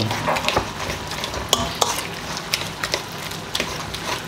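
A fork mashing boiled potatoes with hot cream and butter in a stainless steel bowl: wet squelching, with irregular sharp clicks and scrapes of the fork against the metal bowl.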